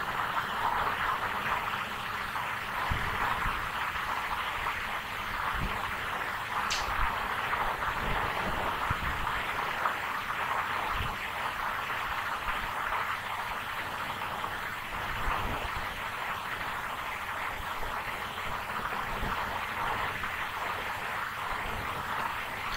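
Steady hiss of background noise on a narration microphone, with a few faint low thumps and one brief high tick.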